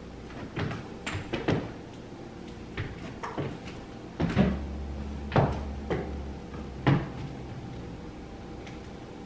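Irregular knocks and clicks, about eight over the span, of a person moving about a room with hard floors and handling things. A low hum comes in for a couple of seconds in the middle.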